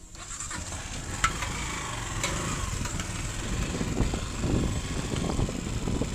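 Small motorcycle engine running while being ridden over a dirt road, with wind noise on the microphone. The engine comes in suddenly and builds over the first second, then holds steady.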